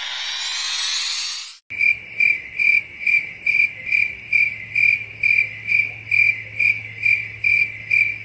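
A dense tone rising steadily in pitch, which cuts off about a second and a half in, followed by a cricket chirping steadily, about two and a half chirps a second, over a low steady hum.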